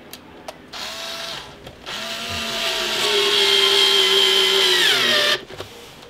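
Cordless drill-driver driving a wood screw into a wooden door frame: a short burst of the motor whine, then a longer run that slows and drops in pitch near the end as the screw seats.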